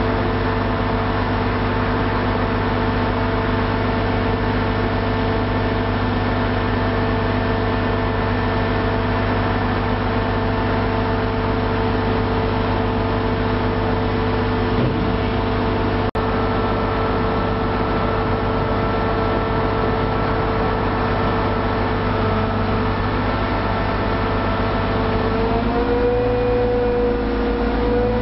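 Diesel engine of a Liebherr LR 1600/2 crawler crane running steadily, a low drone with a steady whine on top; its pitch rises a little about 26 seconds in.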